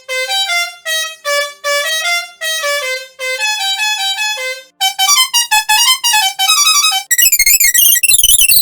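A short electronic tune of stepping notes, heard in three processed versions one after another. The timbre changes about five seconds in, and a much higher-pitched, warbling version starts near the end.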